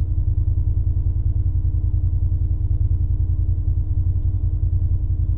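A motor running steadily at idle: a low rumble with a fast, even pulse and a constant hum above it, heard through the recording binoculars' small microphone.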